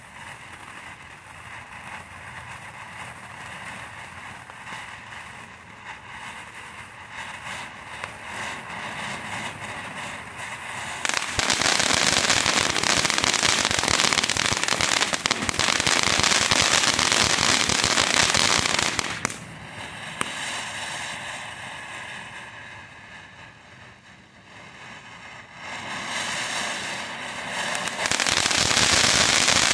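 Great Grizzly Mastermind firework fountain spraying: a steady hiss at first, then about eleven seconds in a loud, dense crackling that drops off around nineteen seconds and builds back to loud crackling near the end, as the fountain moves through its crackling effects.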